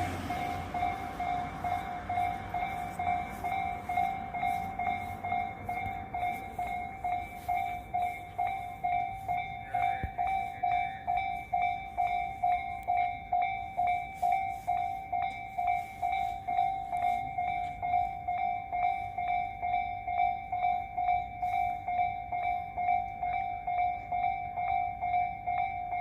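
Japanese level crossing's electronic warning bell ringing in an even, repeating "kan-kan" rhythm. The rumble of a passing train fades out in the first couple of seconds.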